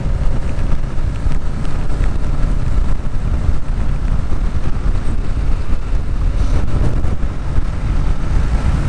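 Kawasaki Ninja 650's parallel-twin engine running steadily while the bike is under way, with wind noise on the microphone.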